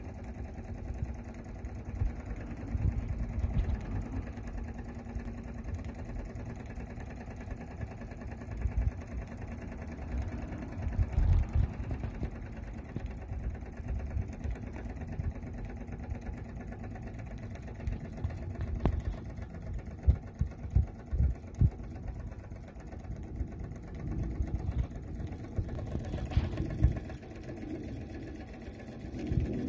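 Jensen #75 toy steam engine running steadily under steam, its flywheel and crank turning, with a constant high hiss.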